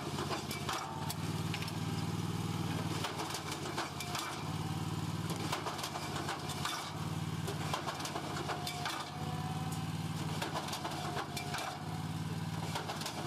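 Farm machine engine running steadily, its drone swelling and easing every couple of seconds, with frequent light mechanical clatter and knocks.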